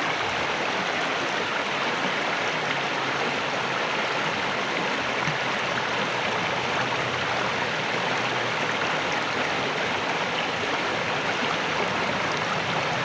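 River water pouring over a waterfall: a steady, even rush of running water.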